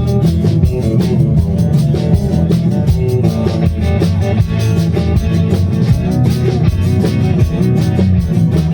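Four-piece country band playing live, with guitars over bass and drum kit on a steady beat, heard from off to the side of the band rather than out front.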